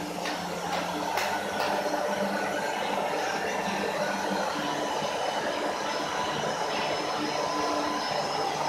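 Steady whirring, rushing machine noise with a faint hum underneath, running evenly throughout.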